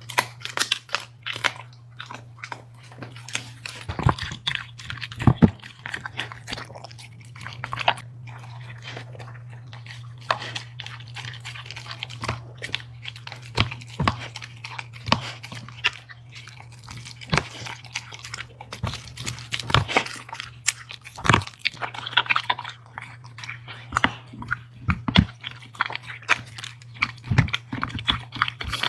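A dog chewing and crunching food, with irregular crisp bites and a few louder crunches, over a steady low hum.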